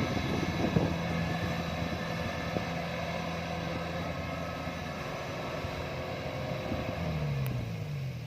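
Rice combine harvester's engine running steadily with the noise of its machinery. About seven seconds in, the engine note drops in pitch as it slows.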